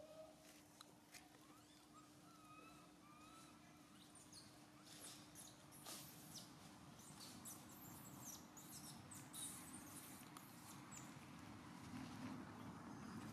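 Faint, near-silent ground scene: a few short high squeaks in the first few seconds, then a dry crackling rustle of leaf litter from about five seconds in, as the macaques shift and walk on dead leaves, over a faint steady low hum.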